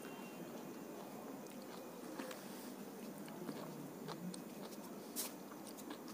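Faint steady background hum with scattered small clicks and ticks from tweezers working on a phone circuit board, and one sharper click about five seconds in.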